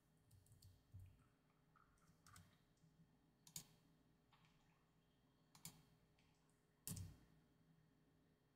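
Faint computer mouse clicks and keyboard key presses: about five separate sharp clicks a second or so apart, the loudest near the end.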